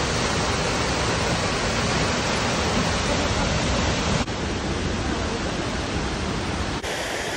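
Large waterfall heard up close: a loud, steady, dense rush of falling water. Its tone changes abruptly twice.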